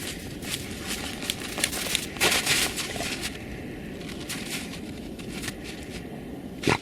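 Irregular crackling and crunching over a steady rushing noise, with a louder burst about two seconds in and a sharp click near the end.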